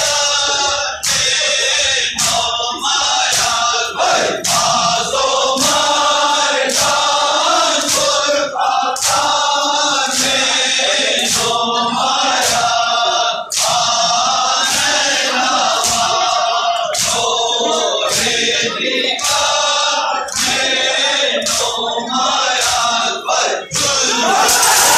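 Men chanting a mourning lament in chorus, cut by sharp strikes in a steady beat a little under two a second, in time with the chant. Near the end a loud rushing noise takes over.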